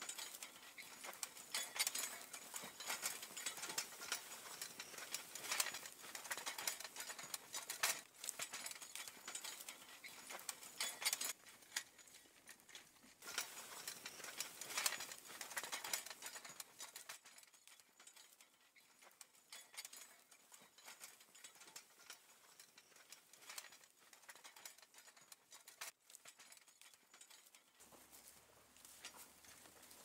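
Horse-drawn potato plow dragging through dry soil and stubble: a continuous crackling and scraping full of small ticks and rustles. It gets quieter about seventeen seconds in.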